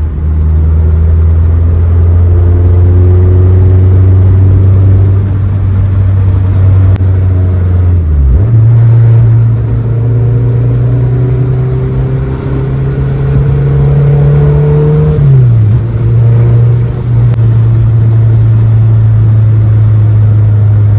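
Mazdaspeed 3's turbocharged 2.3-litre four-cylinder engine pulling while driving. Its note climbs slowly and drops at gear changes about 8 and 15 seconds in. It is running smoothly without hiccups or cutting out, after a coil pack swap for a cylinder 3 misfire.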